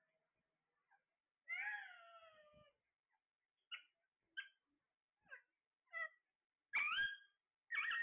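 Caged parrots calling: one drawn-out call falling in pitch about a second and a half in, then a string of short chirps, and two louder squawks near the end.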